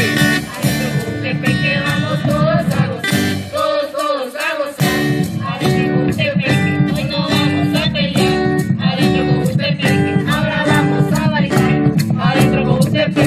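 Small live folk band playing traditional Salvadoran music: steady strummed acoustic guitar with drum and cymbal keeping a regular beat, and a group singing the melody.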